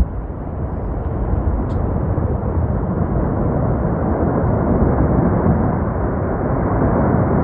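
Wind blowing in a steady rush of noise, growing a little louder after the first second or two.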